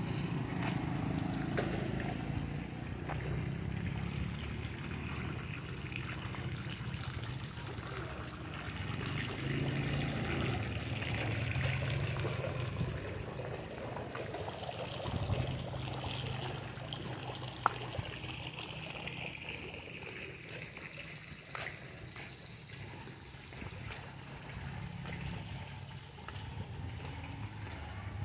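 Fountain water splashing and trickling into an ornamental pond, steady throughout, over a low steady hum. One sharp click about two-thirds of the way through.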